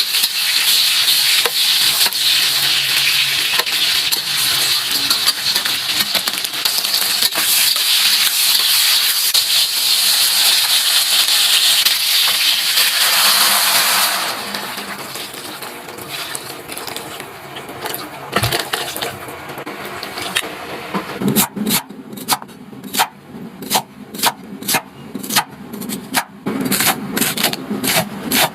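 Food frying in a pan with a steady sizzle that dies away about halfway through. Then comes an irregular run of sharp clicks and knocks, several a second.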